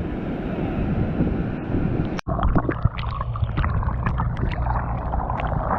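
Low rumble with wind buffeting the microphone, cut off abruptly about two seconds in; then a steady low drone under scattered crackles and splashes.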